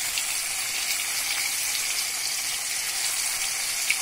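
Chicken 65 pieces deep-frying in well-heated oil in a kadai: a steady, even sizzle of bubbling oil.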